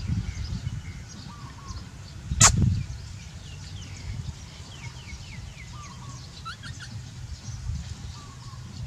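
Small birds chirping in the background over a low rumble, with one sharp knock about two and a half seconds in.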